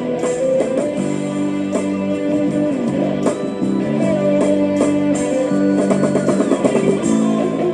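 Instrumental break in a sertanejo song: a band plays with guitar at the front, plucked and strummed, with no singing.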